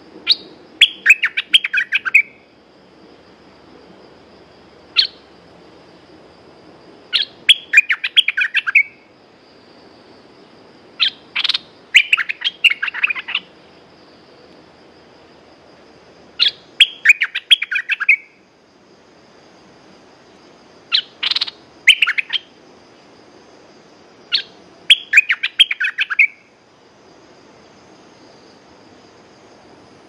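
Bulbul singing in short bursts of rapid, bubbling chirps, a phrase every four to five seconds, with a lone sharp note between two of them.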